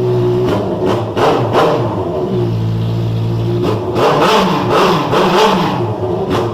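Honda CB650 inline-four engine running through a straight-piped 4-into-1 exhaust with the end tip removed, loud. It idles, is revved in quick throttle blips about half a second in, settles back to idle, then is revved again in a second bout before dropping back to idle near the end.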